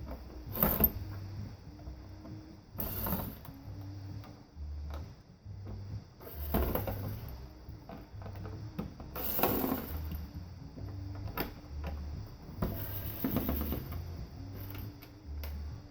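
Metal parts of an old desktop computer being worked loose and handled, with clicking and rattling and several sharper knocks about every three seconds.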